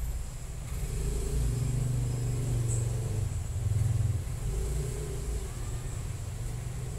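A motor vehicle going past, its low engine rumble swelling over the first few seconds and easing off toward the end.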